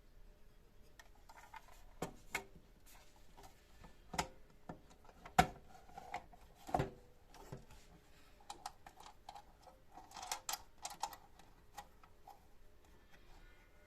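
Irregular clicks and knocks of parts being handled on a Parkside PMTS 210 A1 benchtop table saw. The loudest knock comes about five and a half seconds in, and there is a quick run of clicks around ten to eleven seconds.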